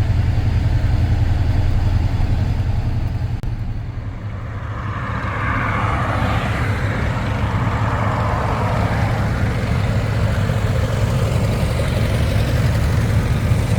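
Antique farm tractor engine running with a steady low chug. About five seconds in, a rushing noise swells over it and fades after a few seconds.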